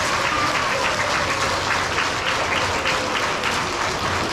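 An audience of schoolchildren applauding steadily, a dense patter of many small hands clapping in a large hall.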